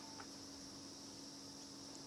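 Quiet background: a faint steady high-pitched hiss over a low hum, with one small tick just after the start.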